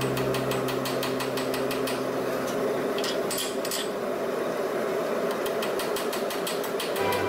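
Hand hammer striking a red-hot high-carbon rail spike on a steel anvil, in rapid, evenly spaced blows several times a second, drawing out the knife blade.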